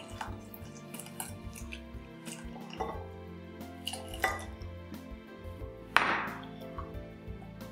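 A whisk clinking and scraping against a glass bowl as an egg, flour and milk batter is whisked, with irregular light knocks, the loudest about six seconds in. Soft background music runs underneath.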